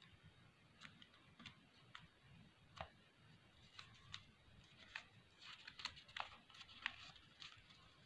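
Faint, irregular crinkles and clicks of a square sheet of origami paper being folded and pressed flat by fingers, coming thicker about five to seven seconds in.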